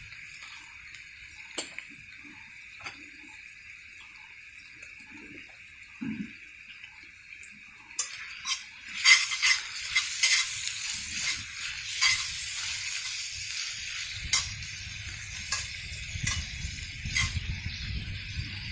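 Food frying in a cast iron pan, sizzling, with the clinks and scrapes of a utensil against the pan. About eight seconds in the sizzle turns louder and fuller.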